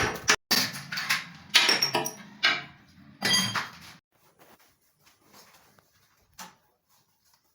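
Tiles and tools knocking and clinking during wall tiling: a run of loud knocks, some with a short ring, in the first four seconds or so, then only faint scattered taps.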